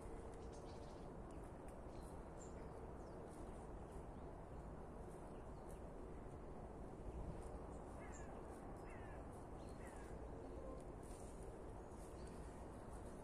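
Quiet outdoor ambience with a steady low hiss and birds calling: a few short calls, mostly in the second half, with faint high chirps.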